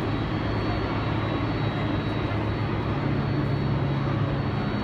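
Jet airliner noise: a steady rush with a faint high whine and a low hum that shifts up in pitch about three seconds in.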